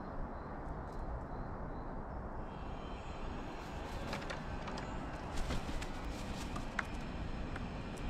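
Steady low outdoor background rumble, with a few light clicks or taps from about four to six seconds in and one short faint high note near the end.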